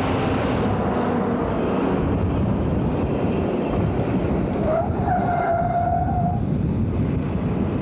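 Jet engines of a B-52G Stratofortress running on the ground, a loud, steady noise. About five seconds in, a short whine rises and holds for a second or so before fading.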